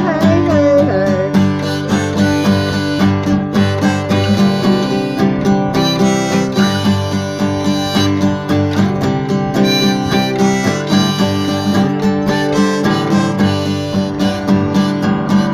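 Harmonica on a neck rack played over a strummed acoustic guitar: an instrumental harmonica break in a folk song.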